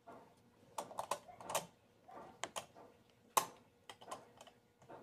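Irregular light clicks and taps of a sewing machine's parts being handled while its bobbin is filled and rethreaded, with one sharper click about three and a half seconds in.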